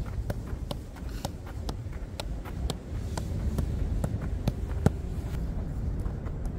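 Football being juggled on the feet: a short tap of boot on ball at each touch, about two a second, evenly spaced.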